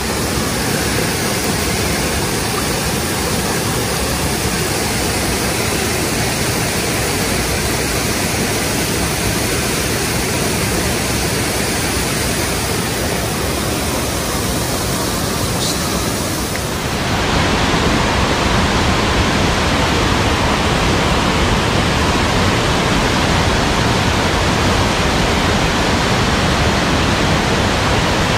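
Rushing water of a mountain stream, a steady hiss with no pauses. About seventeen seconds in it shifts abruptly to a louder, fuller rush.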